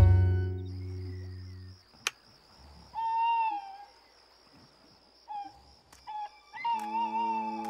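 An owl hooting: one held, slightly wavering hoot, then a few shorter ones and a longer one, over a steady high chirping of night insects. Music fades out at the start, a sharp click comes about two seconds in, and music comes back near the end.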